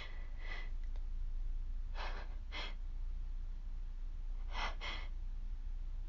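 A person with a cold taking short, breathy breaths in three quick pairs, with no voice in them, while trying to work up a sneeze.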